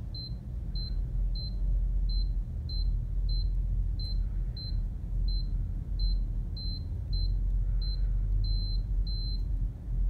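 Continuity tester beeping in short, even beeps of one high pitch, about one and a half a second, as its probes touch connector pad after pad; each beep shows that pad has continuity. The last two beeps near the end are held longer, over a steady low hum.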